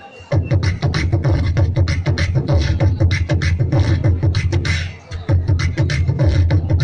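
A man beatboxing into a handheld microphone: a fast, steady rhythm of deep bass hits and sharp clicks in a Punjabi-style beat, starting just after the opening, with a brief break about five seconds in.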